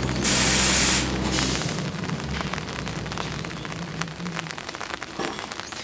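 A parked rail vehicle lets out a loud burst of compressed air about a quarter second in, lasting under a second, with a shorter hiss just after, over a low electrical hum that dies away. Rain then patters on the wet track and ballast, with small drips and clicks.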